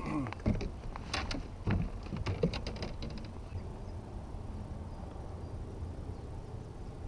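A flurry of knocks, taps and rattles as a freshly landed fish is handled in a landing net on a plastic kayak, lasting about three and a half seconds. After that only a low, steady wind-and-water noise remains.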